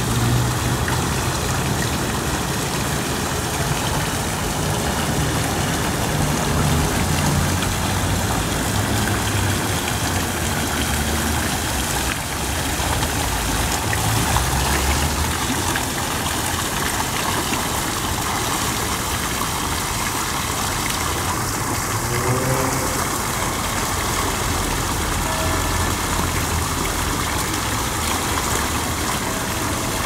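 Tiered park fountain running steadily: water jetting up and splashing down off the rim of the bowl into the basin, a constant rain-like rush with a low, uneven rumble underneath.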